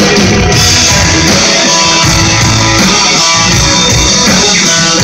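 Live rock band playing loud and steady: guitars and drums in an instrumental passage without singing.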